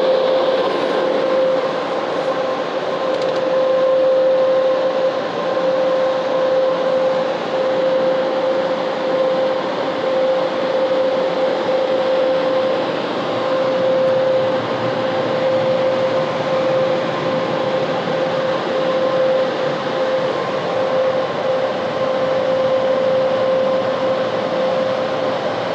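Touchless automatic car wash's air dryers blowing on the car, a steady rush of air with a constant whining tone, heard from inside the car's cabin.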